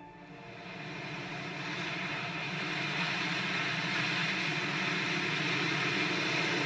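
Disaster-film sound effect of a giant wave and storm front bearing down: a rushing rumble of wind and water that swells over the first few seconds, then holds loud and steady.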